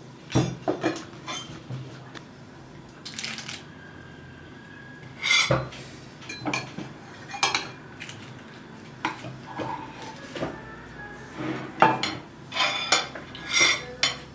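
Dishes and cutlery clinking and knocking together in irregular bursts, some clinks ringing briefly.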